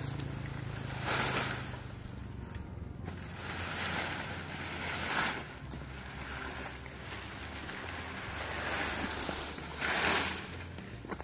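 Cut oil palm fronds rustling and scraping as they are handled and pulled through the undergrowth, in several swells about a second long, the loudest near the end.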